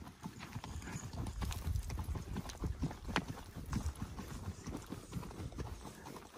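Hooves of a ridden horse clip-clopping on a dry dirt trail, several irregular hoofbeats a second.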